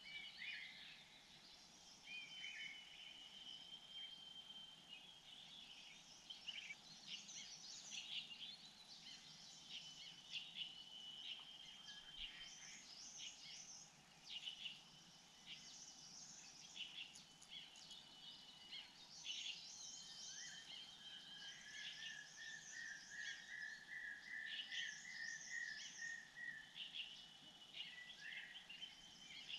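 Faint wild birds calling: many short chirps throughout, thin steady whistled notes that come and go, and a rapid trill of about five seconds in the second half.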